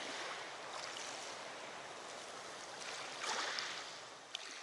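Lake water lapping, with wind noise on the microphone, making a steady hiss that swells louder about three seconds in.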